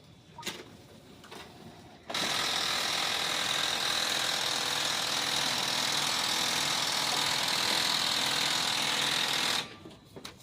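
Ricoh IM C2000 copier-printer running a print job with a loud, steady grinding noise, which has a high whine in it. It starts suddenly about two seconds in and cuts off suddenly near the end, after a faint click early on.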